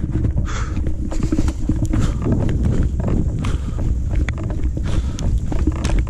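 A runner's footsteps jogging on a dirt trail, a run of short knocks, under a heavy low rumble of wind and handling noise on the action camera's microphone.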